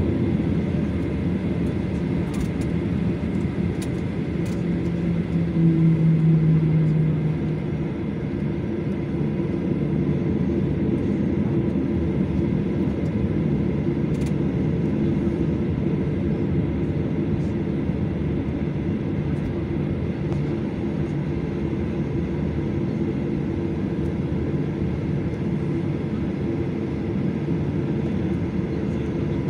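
Boeing 737-800's CFM56-7B turbofan engines running at taxi power, heard inside the cabin over the wing: a steady hum and hiss as the jet taxis onto the runway. A low tone in the hum swells about six seconds in, then fades out a couple of seconds later.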